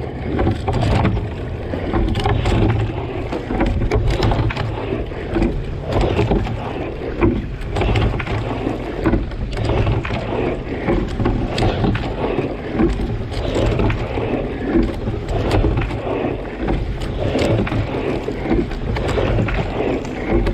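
Water splashing and rushing past a racing single scull as it is rowed, with the oars catching and pulling through the water in surges about every two seconds.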